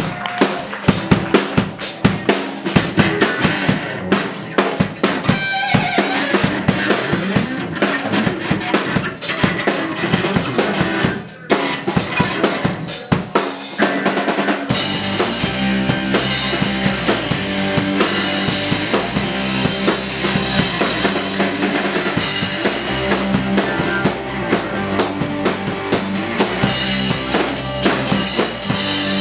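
Live rock band starting a song: a drum kit pounds out a busy beat with bass drum, snare and rimshots, and about halfway through the bass and sustained guitar or keyboard parts come in under the drums.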